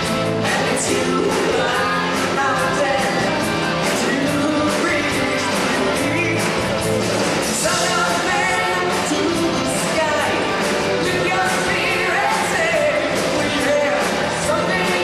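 Live rock music from a stage band: drum kit, percussion and amplified singing, played steadily with a driving beat.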